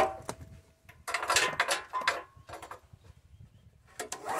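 Honda GX390 engine turned over by a pull on its recoil starter, a rattling pull lasting about a second, with a second pull starting near the end; the engine does not fire, as there is no spark at the plug. A sharp click at the very start.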